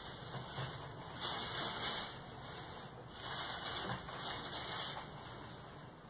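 Clear plastic packaging bag rustling and crinkling as it is handled and pulled off fan parts, in a few spells of rustling, loudest between about one and two seconds in.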